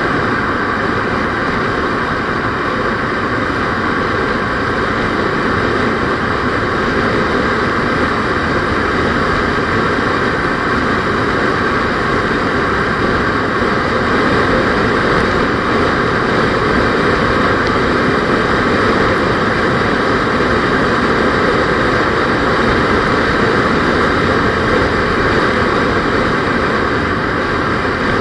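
Steady road noise of a moving vehicle: engine and tyre hum with no breaks, growing slightly louder about halfway through.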